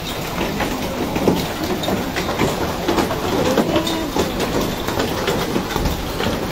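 Large hailstones falling hard: a dense, steady clatter of many stones striking the ground and surrounding surfaces.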